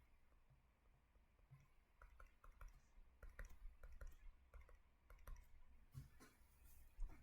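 Near silence with many faint, irregular clicks and taps over a low room hum. A couple of slightly stronger knocks come near the end.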